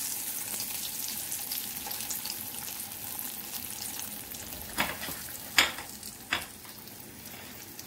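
Breaded chicken pieces deep-frying in hot oil, a steady crackling sizzle that slowly dies down now that the gas is off. Three sharp knocks come about a second apart in the second half.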